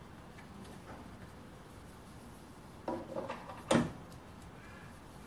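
Handling clicks and one sharp metallic knock about three and a half seconds in, as a Morse taper 2 live centre is pushed into the quill of a Schaublin 102 lathe's tailstock.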